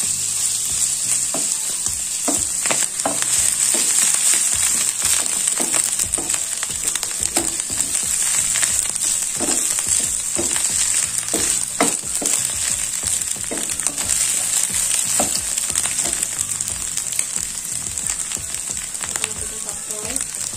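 Shrimp and scrambled egg sizzling in sesame oil in a frying pan, with a steady hiss, while a wooden spatula stirs them, scraping and knocking against the pan at irregular moments.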